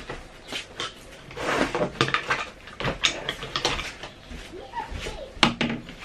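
Broom brushing across a fabric sofa cushion in a series of quick sweeping strokes, with knocks and clatter as things on the sofa are handled; a sharp knock near the end.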